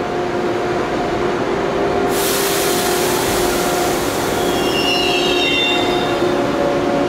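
Seoul Metro Line 2 electric subway train pulling away from the platform. A steady hum runs throughout, a sudden loud hiss starts about two seconds in, and high-pitched squealing tones come in near the end.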